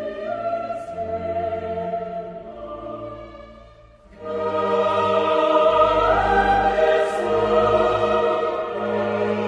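Background music with choir-like voices holding long notes. It fades almost away about four seconds in, then swells back louder and fuller.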